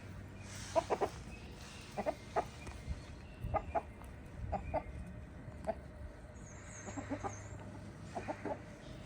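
Backyard hens clucking in short, scattered notes.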